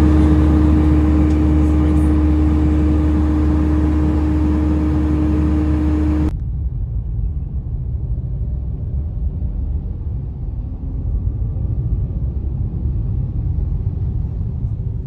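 Loud steady engine drone with a constant hum, cutting off suddenly about six seconds in; then the low, steady road rumble of a car driving.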